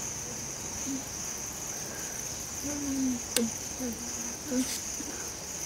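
Steady high-pitched insect drone, such as crickets or cicadas, with a few short wordless voice sounds and one sharp click a little past the middle.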